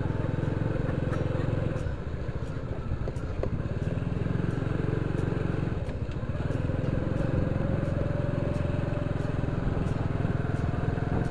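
Motorcycle engine running steadily, its low pulsing note unbroken, with a higher steady tone joining from about halfway.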